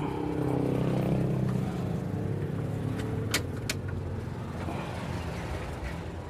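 Honda Astrea Legenda 2 motorcycle's single-cylinder four-stroke engine running, loudest about a second in and then slowly fading. Two sharp clicks come a little past the middle.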